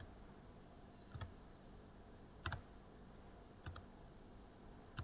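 Faint, sharp computer clicks, four in all at an even pace of about one every second and a quarter, over quiet room hiss.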